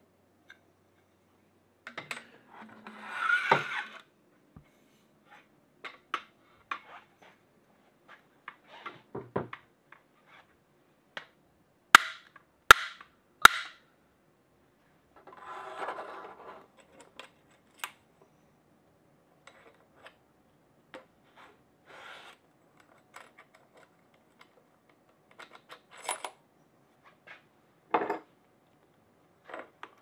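A RockShox ZEB fork being handled and fitted into the head tube of an Evil Insurgent mountain bike frame: scattered light metal clicks, taps and rustles. Three sharp clicks come in quick succession about twelve seconds in, and there is a short spell of rustling about three seconds in and again around sixteen seconds.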